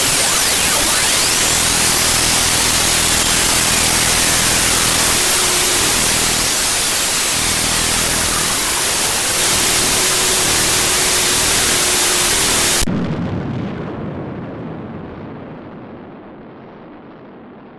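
Curiosity rover's radio signal during its descent through the Martian atmosphere, picked up by Mars Express and converted to sound: a loud hiss with faint tones sweeping up and down through it. About thirteen seconds in the hiss cuts off suddenly, leaving a low rumble that fades away.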